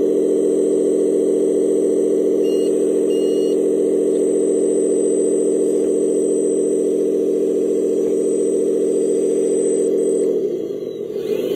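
A vehicle engine runs at a steady, even pitch, then drops and climbs back up in pitch near the end. Two faint short beeps come about two and a half and three seconds in.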